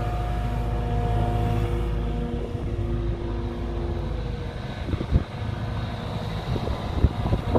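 JCB JS200W wheeled excavator's diesel engine running with a steady hum. A little over two seconds in the deepest part of the sound drops away, and several knocks follow in the last few seconds.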